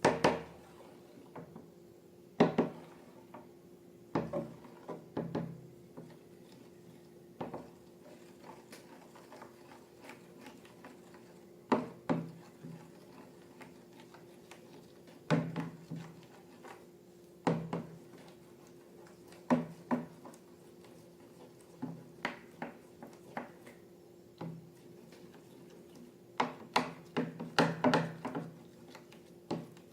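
Irregular sharp taps and knocks of objects being handled and set down on a tabletop, about a dozen spread out with a quick cluster near the end, over a steady faint hum.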